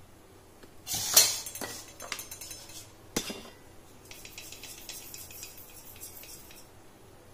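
Metal clatter of a kadhai on a gas stove: a sharp clank about a second in, several smaller knocks and a second clank around three seconds, then a run of faint quick ticks.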